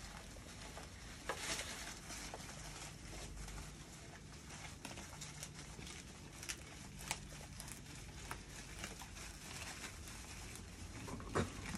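A goat biting and chewing loquat leaves off a branch: leaves rustling and tearing, with scattered sharp snaps and crunches.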